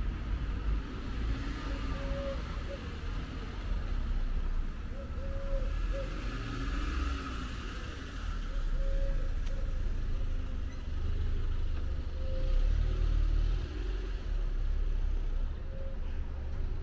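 City street ambience: road traffic passing with a steady low rumble, one vehicle swelling louder about midway.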